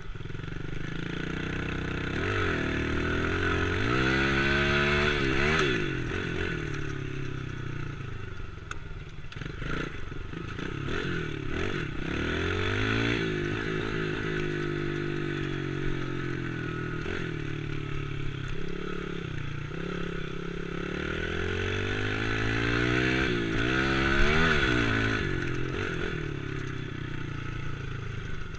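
Small dirt bike engine running under the rider, its revs climbing and falling as the throttle opens and closes. There are two big rising runs, one about four seconds in and one near the end, and the revs settle lower in between. The bike's frame rattles along with the engine.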